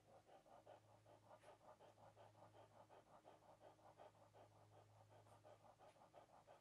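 Seven-day-old puppy breathing and sniffing in quick, soft, even puffs, about five a second, as it takes in the scent. A steady low hum lies underneath.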